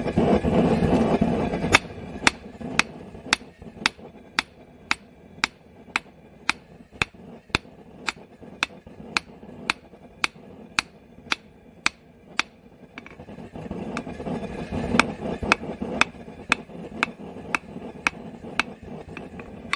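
A 2-pound rounding hammer forging a 3/8-inch square steel bar on an anvil: a steady run of blows, about two a second, each a sharp ring of steel on steel.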